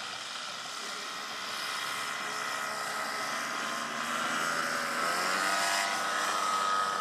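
Twin DLA32 two-stroke petrol engines and propellers of a large 1/10-scale Transall C-160 model airplane on a low fly-by. The sound grows louder as the model approaches, and its pitch drops a little just after the five-second mark as it passes close by.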